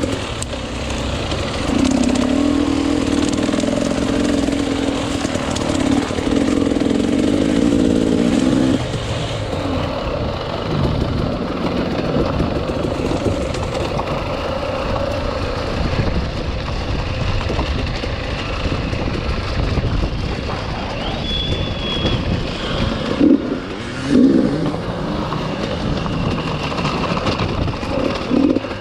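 Enduro motorcycle engine running under changing throttle. It is strongest for the first several seconds and eases off about nine seconds in, with a couple of short blips of throttle near the end.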